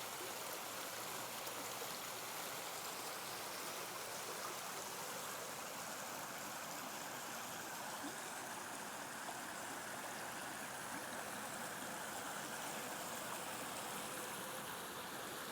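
Running water rushing steadily, a stream of rainwater flowing.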